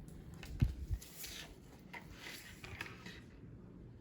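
Small plastic toys being handled on a table: two light knocks in the first second, then faint clicks and rustling.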